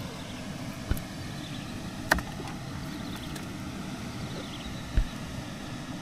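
A steady low engine rumble, with three sharp knocks about one, two and five seconds in.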